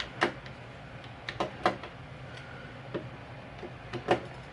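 Several short, sharp clicks and taps at irregular intervals, from small metal tools and scope-mount parts being handled.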